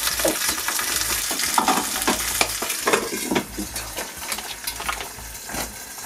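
Salmon fillets sizzling in sesame oil in a frying pan, with a utensil scraping and tapping the pan as the fish is worked loose from the sticking surface. The sizzle is strongest at first and thins out a little past halfway.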